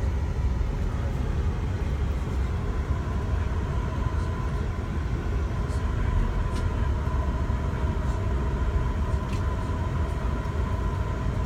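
Steady low rumble of a moving vehicle, with a faint steady whine above it and a few light ticks.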